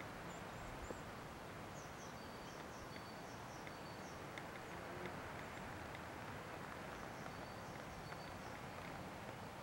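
Faint small-bird chirps, short high notes repeated in little groups, over a steady low outdoor hiss.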